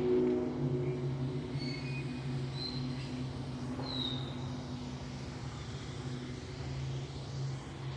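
Jungle ambience: a steady low drone underneath, with a few short bird whistles in the first half, one sliding down in pitch.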